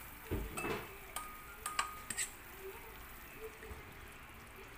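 A spoon and a stainless bowl knocking and clinking against each other and the wok as fish pieces are scraped into the pan, several short metallic clinks with a brief ring in the first couple of seconds, then soft stirring in the broth.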